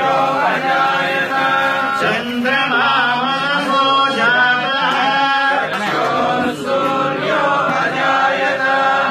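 Several men's voices chanting a Hindu devotional hymn in unison, continuous and sung on a melody.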